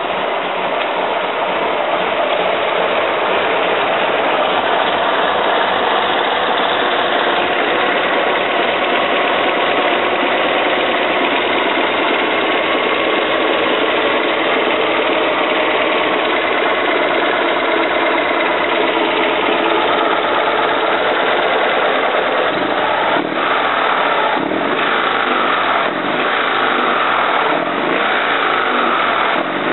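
DB Le Mans's air-cooled Panhard flat-twin engine, with freshly tuned ignition and carburettor, running steadily at idle just after starting. In the last third it is revved up and down several times by hand at the carburettor throttle.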